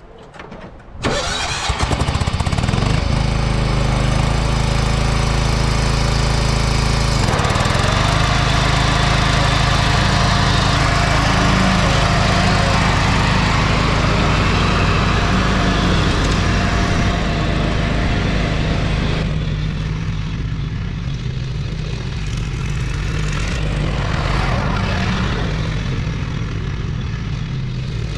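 John Deere 175 riding mower's engine starting about a second in, then running steadily as the mower cuts grass on a test mow. The sound eases off somewhat in the second half as the mower pulls away.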